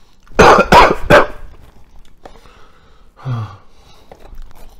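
A man coughs hard three times in quick succession about half a second in, with a mouthful of pizza. About three seconds in comes a short, low throat sound that falls in pitch.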